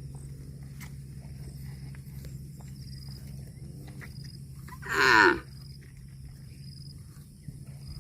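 A cow gives one short, loud moo about five seconds in, over a steady low hum.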